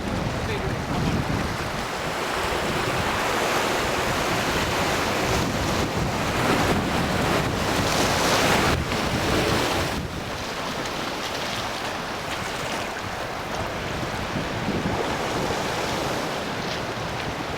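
Sea surf washing with wind buffeting the microphone, a steady rushing noise that grows louder for several seconds and then drops off suddenly about ten seconds in.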